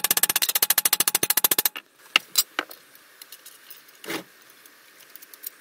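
Ball-pein hammer rapidly striking a MIG weld bead on a steel plate resting on a bench vise's anvil, about a dozen sharp metallic blows a second, planishing the weld to test how hard it is. The hammering stops under two seconds in, followed by a few light metal clinks and a dull knock.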